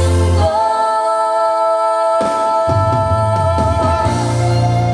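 A slow Korean ballad played back through ScanSonic HD MB-2.5 floor-standing loudspeakers, with a long held note over the accompaniment. The bass drops out about half a second in and returns about two seconds later.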